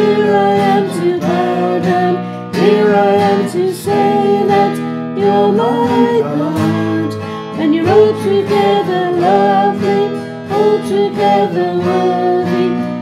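Chorus of a contemporary worship song, sung with instrumental accompaniment.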